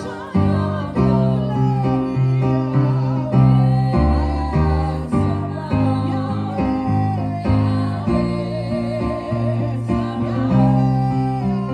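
Live gospel worship music: singing over a band with a prominent bass line.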